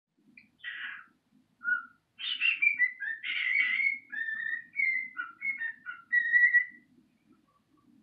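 Cockatiel whistling and chattering: a run of short whistled notes that slide up and down, mixed with scratchy chatter, stopping about a second before the end.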